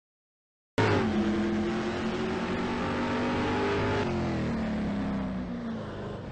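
An engine starting abruptly and running steadily, its pitch sinking slowly from about three seconds in.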